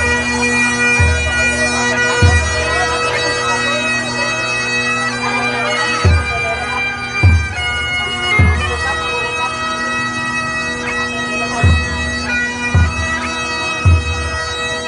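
Procession music: a shrill reed pipe melody of long held notes over a steady drone, with drum strokes falling in groups of three about a second apart, each group coming about every six seconds.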